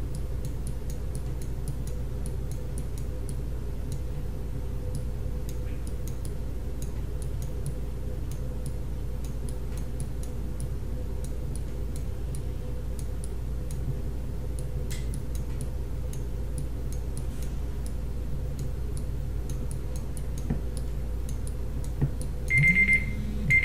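Faint steady ticking over a low electrical hum, then an alarm beeping in short high pulses near the end: a one-minute timer running out.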